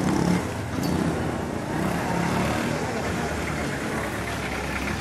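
City street traffic: motor vehicle engines running and passing in a continuous wash of traffic noise, louder for a moment just after the start.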